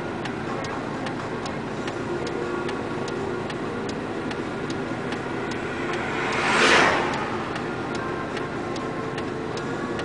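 Evenly spaced clicking, a few clicks a second, from a vehicle's indicator relay, heard inside the stopped vehicle over a steady low hum. About two thirds of the way in, another vehicle passes with a swelling, fading whoosh, the loudest moment.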